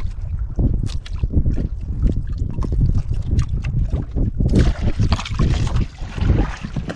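Wind buffeting the microphone over the knocks and rubs of a fishing handline being hauled in hand over hand against the side of a small outrigger boat. About four and a half seconds in, a louder splashy rush as the hooked fish comes up out of the water.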